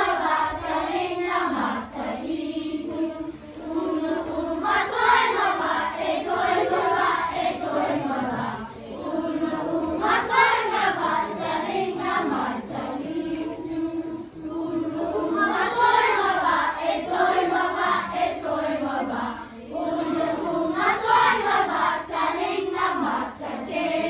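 A group of children singing together as a choir, in swelling phrases about five seconds apart.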